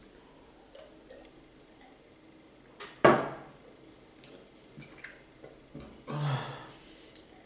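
A drinking glass set down on a wooden table with one sharp knock about three seconds in, among faint small clicks. A short breathy exhale comes about six seconds in.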